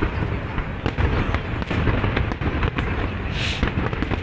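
Aerial firework shells bursting in a continuous barrage: booms and crackles many times a second, with a brief hiss a little past three seconds in.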